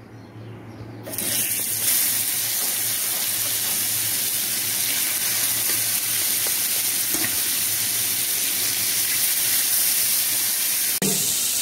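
Marinated fish steaks going into hot mustard oil in a frying pan, setting off a steady sizzle about a second in that keeps going as the fish fries.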